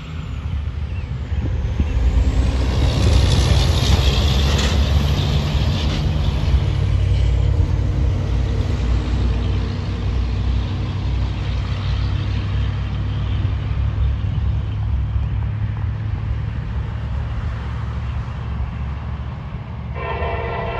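Steady low rumble, louder and noisier for a few seconds early on; near the end the horn of an approaching CSX freight locomotive starts to sound, a chord of several steady tones.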